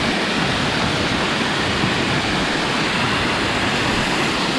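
A waterfall's steady rush of falling water, an even roar with no breaks.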